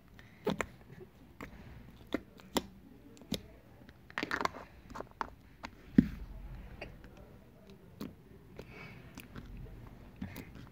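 Slime being squeezed, stretched and poked by hand: irregular sticky clicks and pops, a crackly stretch about four seconds in, and a louder thump about six seconds in.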